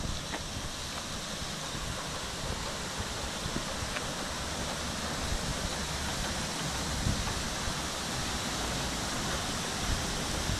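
Steady rushing of running water, with irregular low wind buffeting on the microphone.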